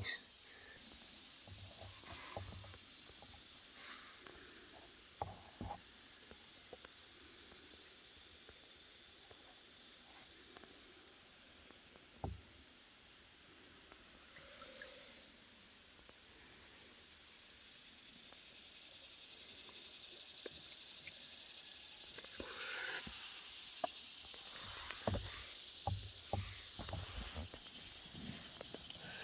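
Faint, steady chirring of insects, likely crickets, with a higher buzz that comes and goes every second or two. A few soft knocks and handling noises, more of them near the end.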